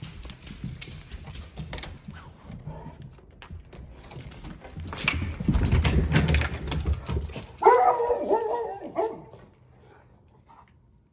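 Dogs whining and barking, the calls wavering in pitch for about a second and a half past the middle, after a stretch of low rumbling noise and scattered clicks and rustling.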